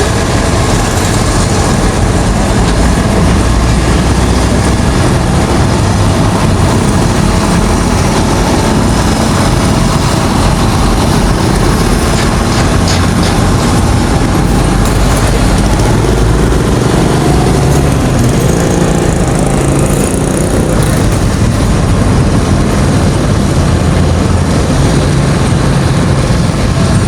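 A vehicle engine running steadily under a loud, even rush of noise, with a low hum that becomes more distinct in the latter half.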